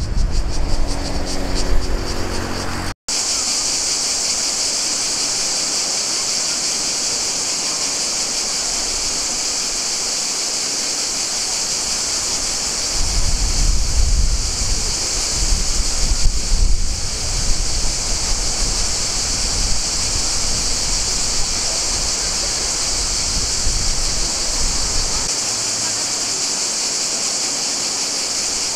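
Steady, dense chorus of cicadas: an unbroken high-pitched hiss. Low wind rumble on the microphone comes and goes, most clearly around the middle.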